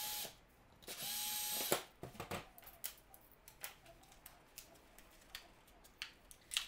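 Cordless drill-driver backing out the screws of a throttle position sensor on a throttle body: the tail of one short run right at the start, then a second run of under a second about a second in, spinning up to a steady whir. After that, light clicks and taps as the small screws and the sensor are set down on the steel bench.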